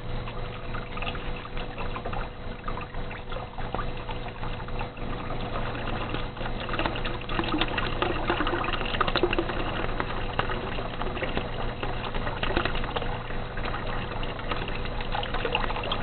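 Water from a bell siphon's PVC outlet pipe pouring and splashing into an aquaponics fish tank, churning up bubbles as the siphon drains the grow bed. A faint steady hum runs underneath.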